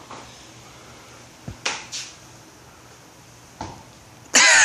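Quiet garage room tone with a few light clicks and taps, then a person's loud voice breaks in near the end.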